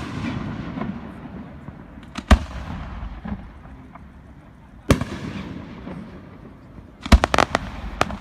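Fireworks bursting overhead: a single sharp bang about two seconds in and another about five seconds in, each trailing off in a low fading rumble, then a quick cluster of crackling reports near the end.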